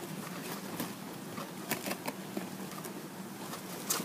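Faint handling sounds of a fabric ribbon bow being worked by hand, rustling with small scattered taps and clicks as cord is wrapped around its middle, over a steady low hum.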